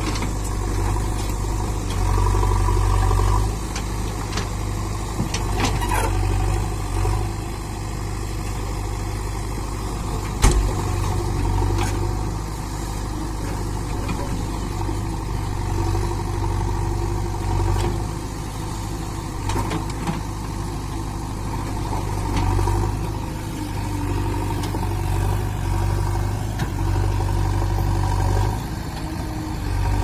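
JCB 3DX backhoe loader's diesel engine running steadily while the machine moves, its note swelling and easing. A single sharp clank comes about ten seconds in.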